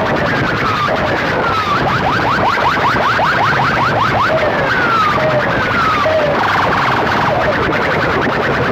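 A bank of horn loudspeakers on a sound-system rig blasting loud electronic siren-like tones: rapid falling chirps repeating several times a second, with slower falling sweeps laid over them. A little past the middle, the chirps briefly give way to a fast buzzing pulse.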